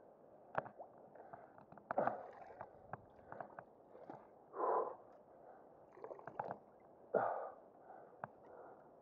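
A person's short, heavy breaths of effort, with scattered knocks and snaps of wood as he clambers along a fallen tree trunk over the water.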